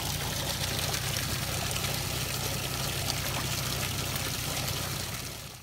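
Steady hiss of running water, fading out in the last half second.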